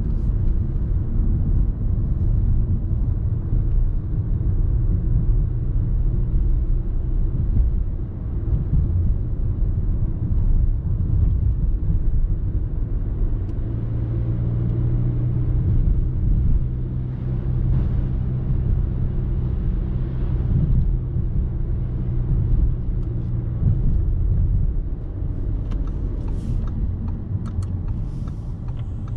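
Audi A3's 1.6-litre four-cylinder turbo diesel running on the move, mixed with steady road and tyre rumble. About halfway through, the engine settles into a steady note for several seconds. Near the end the sound eases slightly.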